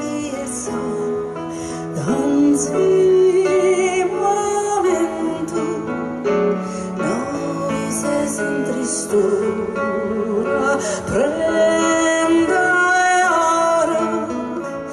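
Live music: a woman singing a held melody with vibrato over acoustic guitar and keyboard accompaniment.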